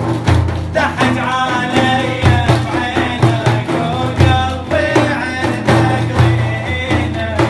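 Syrian Raqqawi mawlia folk song: a wavering melody line over a steady, heavy drum beat.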